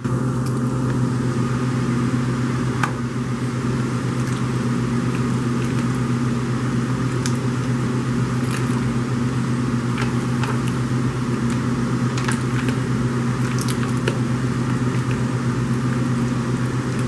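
Gloved hands squishing and kneading cream cheese and sour cream in a foil pan, making scattered wet squelches and crackles, over a steady low hum that is the loudest sound.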